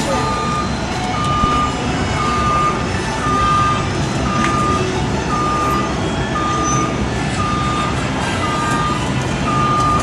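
A construction machine's back-up alarm beeping about once a second, one steady mid-pitched tone each time, over a steady low engine rumble.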